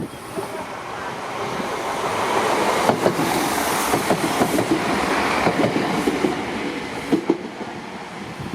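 A passenger train passing over the crossing, its wheels clacking over the rail joints; the sound builds, peaks in the middle and fades toward the end.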